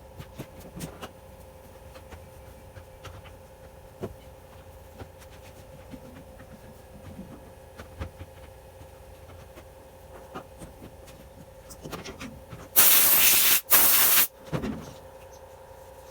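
Small clicks and taps over a steady low hum, then two short, loud bursts of spraying hiss near the end, in the middle of cleaning a washing machine.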